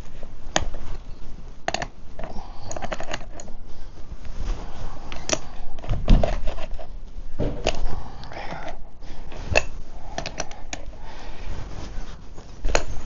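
Irregular clicks, knocks and scraping of a chainsaw being handled, with its engine not running.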